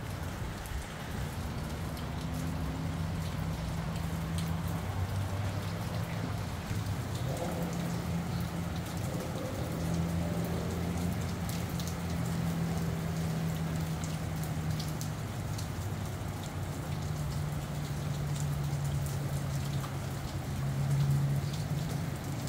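Steady rain falling, with single drops ticking here and there, over a low steady hum.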